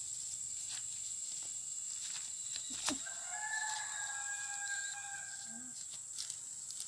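A rooster crowing once, a drawn-out call of about two seconds, over a steady high drone of insects. A sharp click comes just before the crow.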